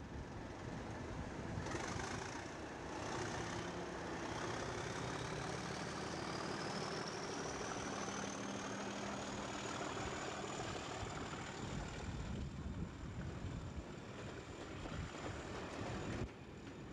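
Class 37 diesel locomotive's English Electric V12 engine working under power as it pulls a train away, its turbocharger whistle rising in pitch over several seconds and then holding high and steady. The sound cuts off suddenly near the end.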